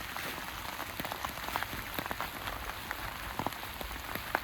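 Steady rain: an even hiss with scattered sharp taps of single drops.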